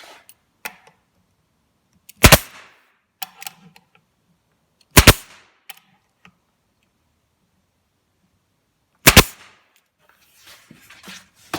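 A pneumatic staple gun fires three times, a few seconds apart, each a sharp loud shot driving a staple into the cabinet, with faint handling noise between shots.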